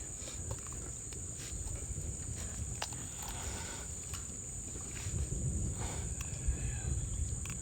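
Steady high-pitched insect trill, with scattered sharp clicks and low rumbling handling noise that grows louder in the second half.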